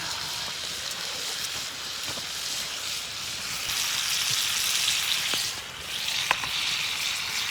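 Homemade hamburger patties frying in a cast iron frying pan over a campfire: a steady hiss that swells for a moment midway and briefly dips, with a few sharp pops.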